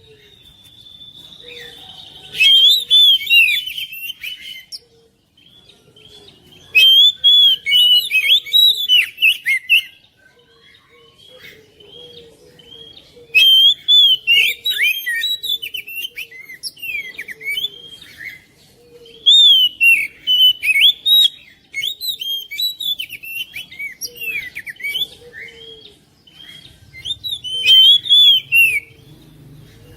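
Oriental magpie-robin (kacer) singing: loud bursts of fast, varied whistled phrases every five or six seconds, with quieter twittering between them.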